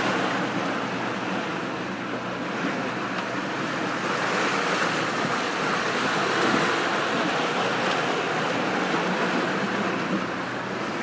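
Sea waves and wind at sea, a steady rushing wash of water.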